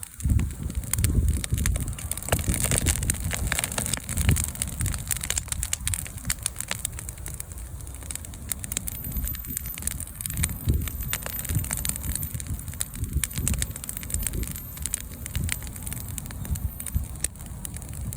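Wood bonfire crackling, with many sharp pops and snaps scattered throughout, over a gusty low rumble of wind on the microphone.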